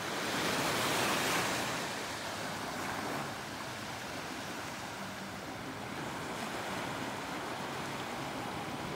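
Small waves breaking and washing up a sandy beach. One louder wash swells in during the first two seconds, then the surf settles to a steady hiss.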